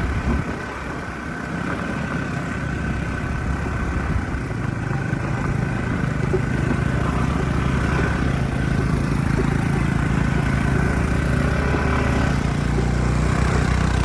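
A vehicle engine running steadily on a rough off-road drive, growing louder over the first several seconds and then holding steady.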